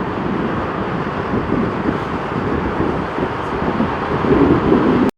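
Steady rushing noise of a jet airliner on landing at the runway, mixed with strong wind on the microphone; the sound cuts off abruptly near the end.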